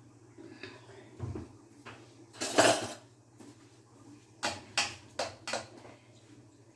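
Kitchen utensils and a cooking pan clattering: one longer clatter about two and a half seconds in, then a few quick knocks a second or so later.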